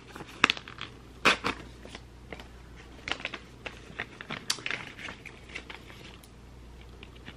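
Packaging of gel eye patches being handled and opened: a scattering of short clicks, taps and crinkles.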